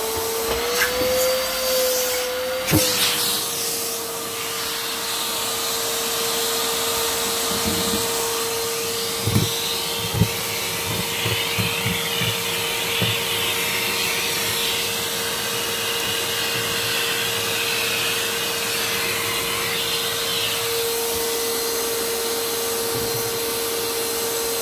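Vacuum cleaner sucking loose pet hair and small debris off a tile floor through its hose. Its whine rises as the motor comes up to speed over the first couple of seconds, then holds steady. A few sharp ticks of debris going up the hose come from about eight to thirteen seconds in.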